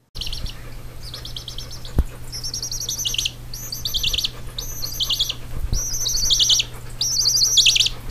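Baby chick peeping repeatedly in quick high-pitched chirps that fall in pitch, over a steady low hum, with a soft knock about two seconds in.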